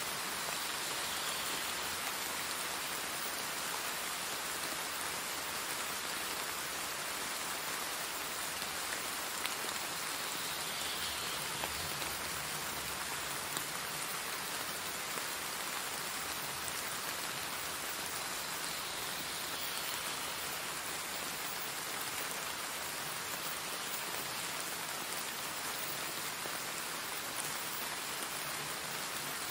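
Steady rainfall, an even hiss of rain falling on a surface with no thunder, used as the masking track of a subliminal affirmation recording.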